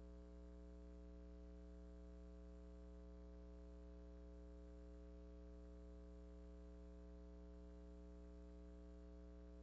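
Near silence: a steady electrical hum with no other sound.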